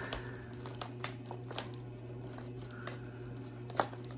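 Cardboard toy box being pried open by hand: scattered small clicks and scrapes of the paperboard flap, with one sharper snap near the end, over a steady low hum.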